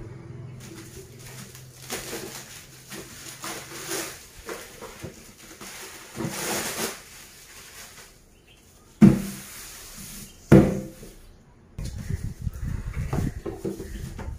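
Plastic wrap rustling as it is pulled off a cardboard box, then two sharp knocks about a second and a half apart as the box is handled on a tiled floor, followed by cardboard scraping and shuffling as it is turned over.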